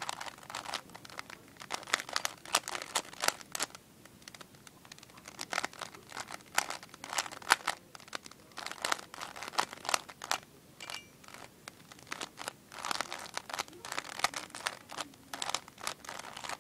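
A 3x3 Rubik's cube being turned fast, its plastic layers clicking and clacking in rapid flurries, with short pauses between them.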